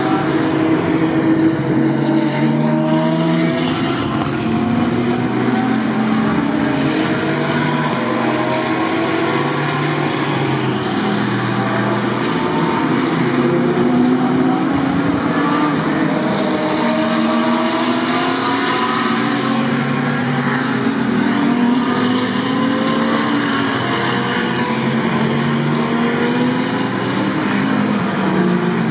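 GT3 race car engines at full throttle through a corner, several cars overlapping: repeated rising revs broken by upshifts as they accelerate away, one car after another.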